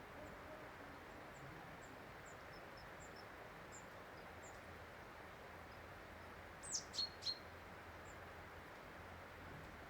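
Small birds calling over a steady faint hiss: a run of faint, high, thin chirps about twice a second in the first half, then three loud, sharp calls in quick succession about seven seconds in, the first sweeping down in pitch.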